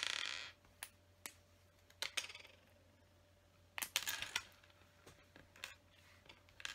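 Small plastic LEGO pieces clicking and rattling against a tabletop as they are handled and set down: a rattle at the start, then a few separate clicks and a short run of clicking about four seconds in.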